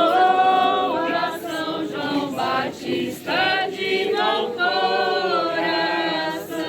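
A group of voices singing a devotional folk song to Saint John the Baptist together, unaccompanied, in long held notes.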